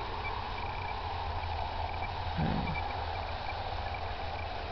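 A single short, low, muffled thud about two and a half seconds in, from distant backyard fireworks. Behind it, faint insect chirping repeats over a steady low rumble.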